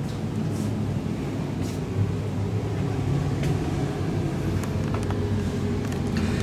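Steady low mechanical hum of a running air conditioner, with a few soft footsteps on the floor.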